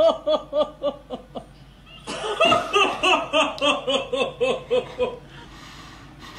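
A person laughing in quick, even ha-ha pulses, about five a second. A short bout comes at the start, then after a brief pause a longer bout of about three seconds, which dies away near the end.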